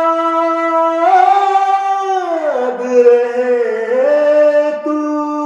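A man singing long, wordless held notes, stepping up and down between a few pitches.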